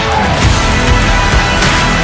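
Loud, driving background music with heavy bass and crashing cymbals.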